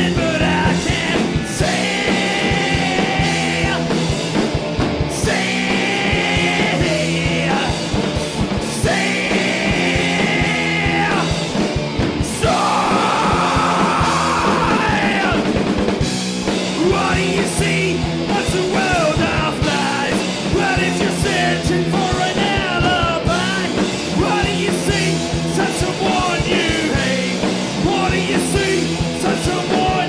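Punk rock band playing live: electric guitars, bass guitar and a drum kit, with shouted singing over the top.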